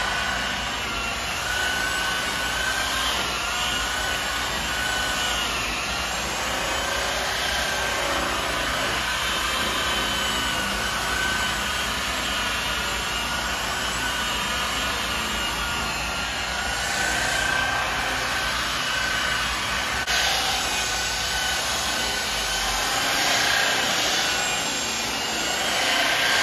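Electric rotary buffer running steadily as it spins a wool pad loaded with cutting compound across a painted steel hood, a heavy-cut pass on single-stage paint. A steady motor whine wavers slightly in pitch as the pad is worked, then cuts off suddenly at the very end.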